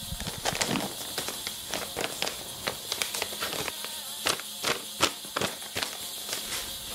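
A brown paper envelope being torn open slowly by hand: an uneven run of crackling rips and paper rustles.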